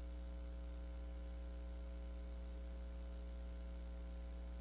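Steady electrical mains hum: a low, constant drone with a ladder of steady overtones that does not change.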